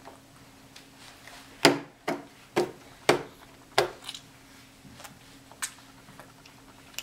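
A run of five sharp knocks about two a second, each dying away quickly, then one lighter knock later on.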